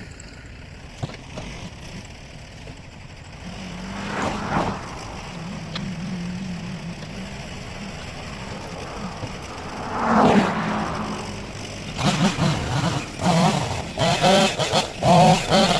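Tractor engine running steadily and revving under load, swelling twice and then rising and falling rapidly in a choppy series near the end.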